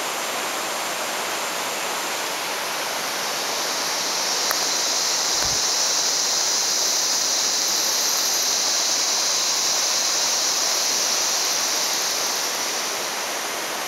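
River rapids rushing over marble rocks, a steady broad rush of water, with a higher hiss that swells for several seconds in the middle.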